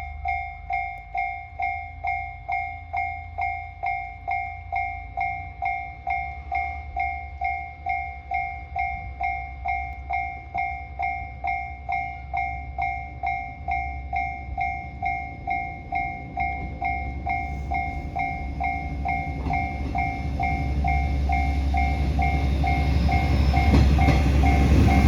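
Japanese level-crossing warning bell dinging steadily about twice a second, a two-tone electronic chime. A diesel local train approaches beneath it, its rumble growing steadily louder over the last third.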